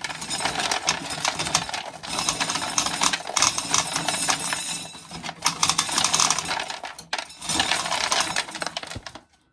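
Dried corn being shelled, the kernels rattling and clattering into a container in about four stretches of dense clicking with short breaks between them.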